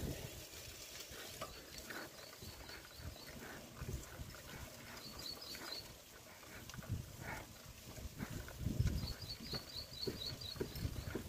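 Low thumps and rustling from walking with the camera along a tiled walkway, with a rapid high chirping that comes in two short bursts, about halfway through and near the end.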